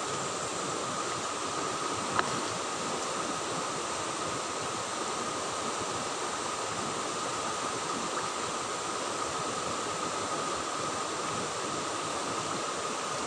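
Steady rushing of a fast river flowing over boulders, with a single sharp click about two seconds in.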